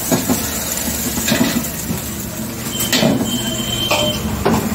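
Metal ladle scraping and clanking against a wok as rice is stir-fried over a gas burner, over a steady sizzling hiss. Several sharp clanks, with a thin high metallic squeal from the ladle on the wok about three seconds in.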